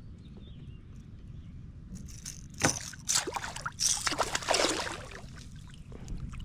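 Water splashing and sloshing beside a kayak as a hooked bass is brought in and landed, in several short bursts around the middle over a steady low rumble of water and wind.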